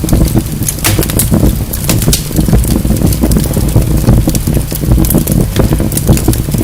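Wood fire burning in a fireplace, crackling with many sharp, irregular pops over a steady low rumble of the flames.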